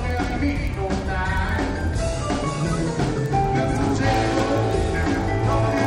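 Background music: a song with singing over a drum beat.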